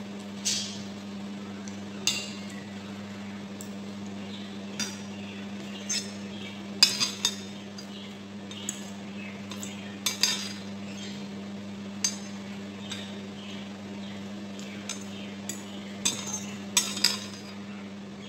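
Metal spoon and fork clinking and scraping against a ceramic bowl while eating, in irregular sharp taps, over a steady low hum.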